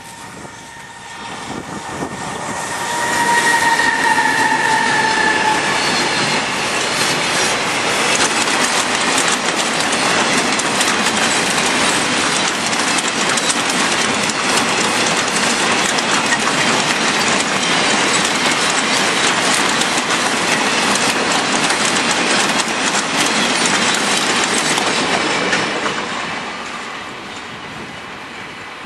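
An electric-hauled freight train passing close by: a steady whine from the locomotive rises over the first few seconds and dips slightly in pitch as it goes past. A long run of wagons follows with continuous wheel clatter over the rail joints, fading from about 26 seconds in.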